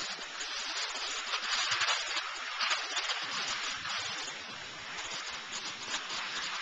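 Steady hiss and scrape of sliding down a groomed ski run on soft, slow snow, the scraping swelling and easing with the turns.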